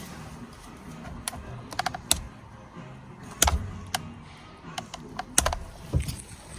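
Small screwdriver clicking and tapping against a steering wheel's airbag retaining catches while prying them free: a string of irregular sharp clicks, some in quick clusters.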